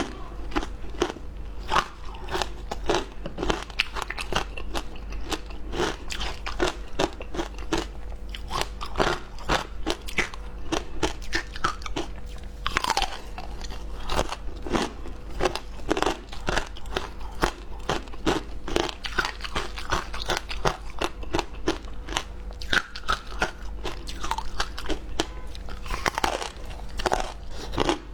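Frozen ice being bitten and chewed close to the microphone: dense, irregular crunches, several a second, with no pause.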